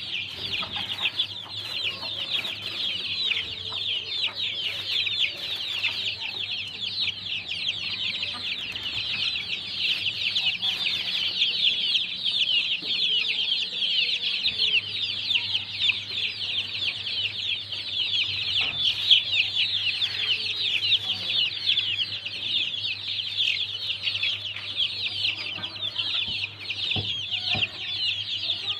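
A crowd of young chicks peeping continuously: many high, short, overlapping cheeps with no break. A low steady hum runs underneath.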